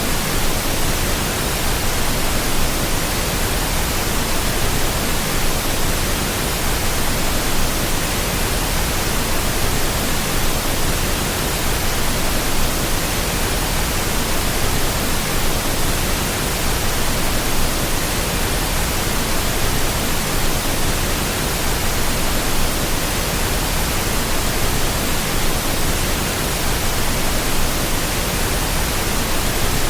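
Steady, even rushing of flowing water, a constant hiss-like noise spread from low to very high pitch, with no birdsong or separate events.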